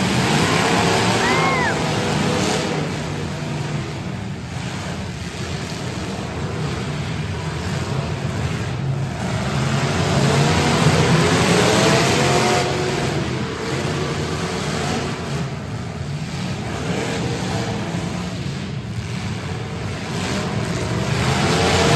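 Several demolition derby cars' engines revving hard and falling back in repeated surges over a steady din. The surges are loudest about halfway through and again near the end.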